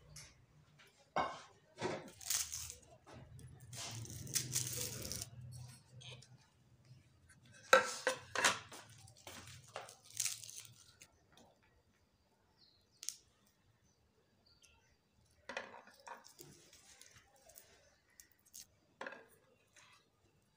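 Dry onion and garlic skins being peeled and torn by hand, with a knife scraping and clinking against ceramic plates, in irregular short bursts with pauses between.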